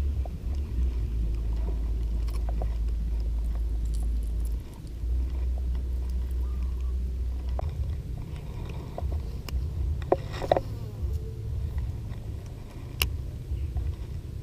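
Wind buffeting the microphone as a steady low rumble, with a few sharp clicks around ten and thirteen seconds in.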